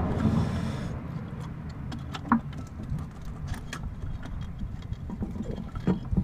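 A few light metallic clicks and taps as a front brake pad on a 2000 Jeep Cherokee is worked out of the caliper bracket, one sharper click with a brief ring about two seconds in, over a steady low rumble.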